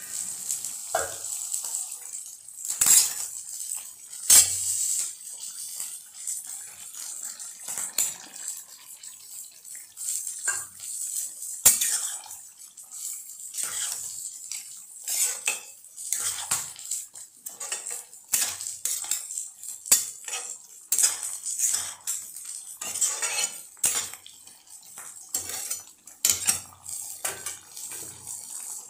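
Spatula scraping and knocking against a pan as a thick meat curry is stirred, in irregular clanks and scrapes; a steel pan lid is handled as it comes off near the start.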